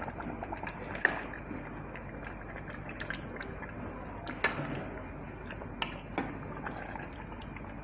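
A metal spoon turning potato stew in an aluminium pot, with a few sharp clinks of the spoon against the pot, over a steady hiss.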